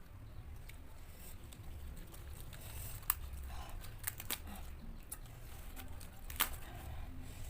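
Close-miked chewing of raw leafy greens: young papaya leaves and mango shoots. Soft mouth sounds are broken by a few sharp, crisp clicks about three and four seconds in and again past six seconds, over a low steady hum.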